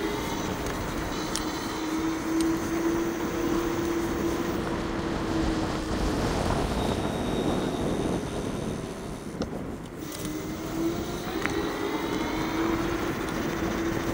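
Bluetran Lightning riding fast on a paved path, with wind rushing over the microphone and tyre noise, and a steady motor whine. The whine fades out around the middle, returns about ten seconds in and climbs in pitch as it speeds up again.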